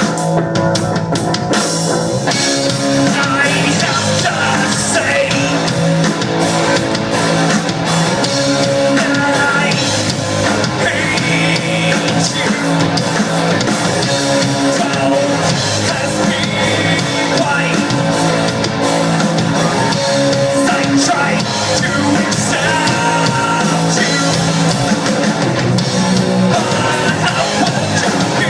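Live rock band playing: drum kit, electric guitar and singing, loud and unbroken.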